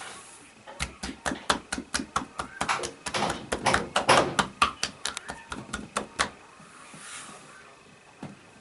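Rapid, irregular series of sharp taps, about five a second, that stop about six seconds in.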